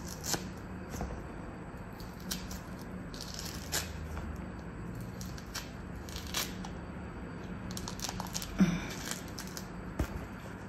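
A clementine being peeled by hand: scattered short tearing and crackling sounds as the peel is ripped away from the fruit, over a faint steady hum.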